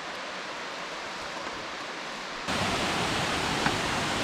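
Crabtree Falls waterfall rushing steadily; about two and a half seconds in it jumps abruptly to a louder, fuller rush.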